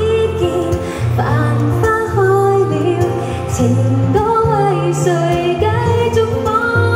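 A woman singing a pop song live into a microphone, with held, sliding notes, accompanied by guitar.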